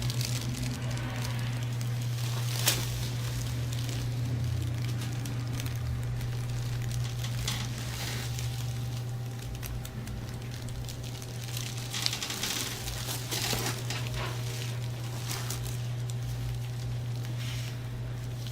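Hands massaging a person's shoulders and back: uneven rustling and rubbing of palms on skin and clothing that swells and fades, with a sharp tap about three seconds in, over a steady low hum.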